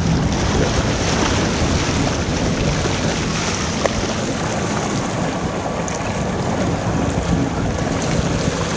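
Wind buffeting the microphone over choppy water sloshing and splashing against a floating dock and its plastic float drums.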